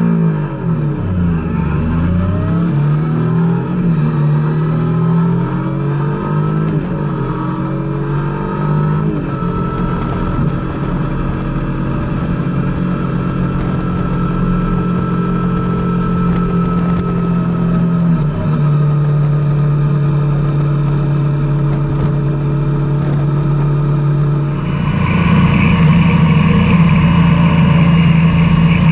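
Triumph Tiger 800's three-cylinder engine under way: the engine note falls and climbs through the revs over the first several seconds, then holds a steady cruise, and grows louder with more throttle about three-quarters of the way through.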